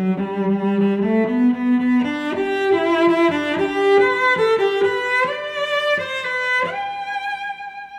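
Background music on bowed strings, playing a moving melody that settles near the end onto one long held note, which fades away.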